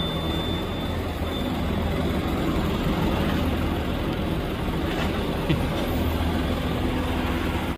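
A motor vehicle's engine running steadily: a low, even hum under a constant wash of road or traffic noise.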